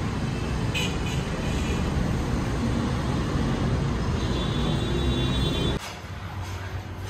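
Steady rumble of road traffic from a busy street; it cuts off suddenly about six seconds in, leaving a quieter low hum.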